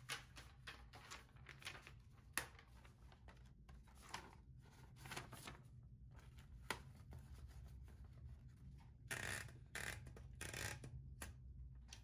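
Faint paper handling: light, irregular rustles and small clicks, busiest about nine seconds in, over a low steady hum.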